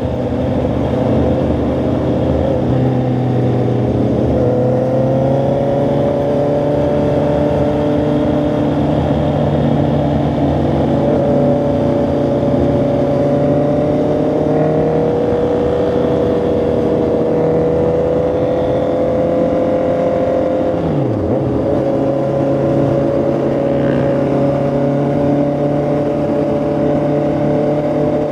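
Honda CB650R's inline-four engine and exhaust under way at a cruise, its pitch rising and falling gently with the throttle.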